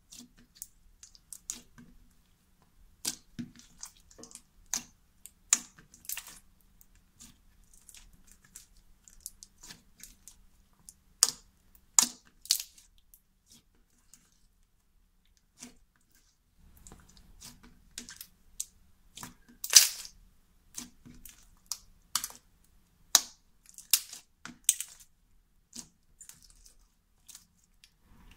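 Foam chunk slime being squeezed and stretched by hand, giving irregular sticky pops and crackles, a few of them sharper and louder.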